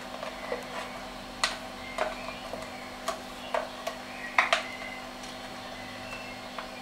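Sharp hard-plastic clicks and taps as a yellow-fronted Amazon parrot works a clear acrylic foraging puzzle toy with its beak, knocking and sliding its pieces. About half a dozen separate clicks, the loudest two in quick succession a little past the middle.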